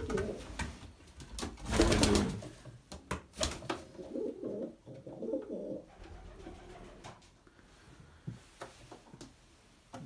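Racing pigeons cooing in a small wooden loft, with a loud rustling noise about two seconds in.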